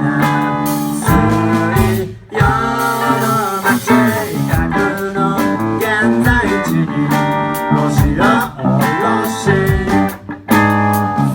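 Music with guitar and a singing voice, in a blues or country style.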